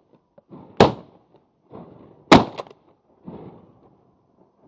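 Two loud shotgun shots about a second and a half apart, each with a short echo after it, and two fainter bangs between and after them.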